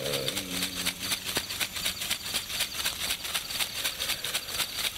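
Meditation music: a shaker keeps a steady, fast rhythm of crisp rattling strokes, while a low chanted vocal note fades out about a second in.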